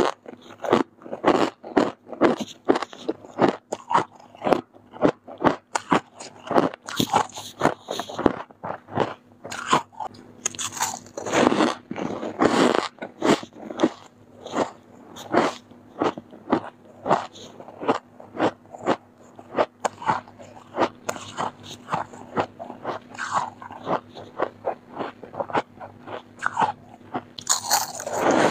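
Freezer frost being bitten and chewed in the mouth: a steady run of crisp, icy crunches, about two or three a second.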